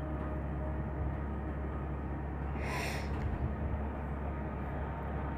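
Steady low background hum in a pause, with one short sharp breath through the nose about three seconds in.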